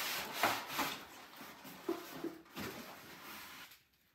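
Styrofoam packing rubbing and scraping against a cardboard box as a stand mixer is worked out of it, with a few short knocks and squeaks. The scraping stops shortly before the end.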